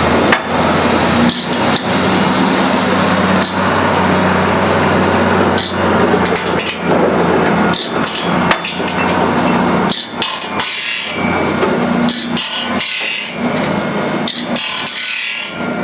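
Saw-sharpening machine grinding the teeth of a cedar shingle head saw with its stone: a continuous gritty rasp broken by frequent sharp ticks as the teeth pass, over a low motor hum that dies away about halfway through.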